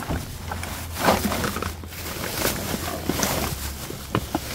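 Rummaging through trash in a dumpster: irregular rustling and knocks of bags, boxes and packaging being handled, over a steady low hum.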